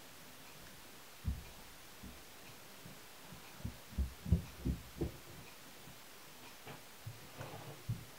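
A few faint, irregular low thumps over a quiet room background, bunched together around the middle and again near the end.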